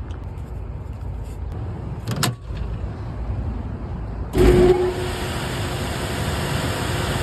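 Rooftop HVAC unit running with a low rumble and a short clack about two seconds in. About four seconds in, a much louder steady rush of machinery noise starts abruptly, with a brief tone as it comes on, and keeps running.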